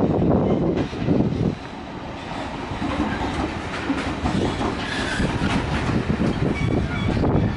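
A train rolling past on the track, a dense rumble and clatter of wheels on rails. It is loudest in the first second and a half, eases, then builds again, with a few faint high squeaks in the middle.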